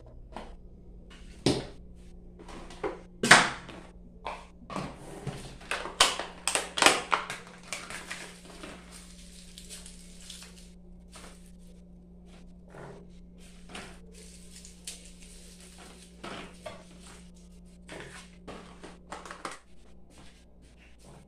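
Kitchen handling clatter: a run of knocks, clicks and rustles as a pot, a small plastic tub of garlic cloves and a plastic cutting board are handled on a gas hob and counter. It is busiest in the first eight seconds and then thins out to occasional taps.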